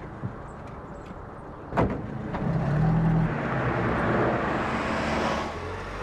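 A car being driven, heard from inside the cabin: a steady engine and road rumble, with a sharp knock about two seconds in. The engine and road noise swell loudly from about halfway, then ease off near the end.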